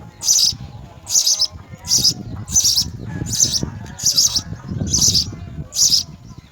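House sparrow chirping over and over, short high chirps about every three quarters of a second, over a low rumble.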